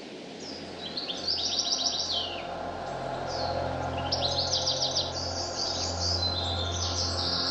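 Small birds chirping and singing in high, quick trilled phrases, twice, with a second round about four seconds in that runs on into overlapping song, over a low steady hum.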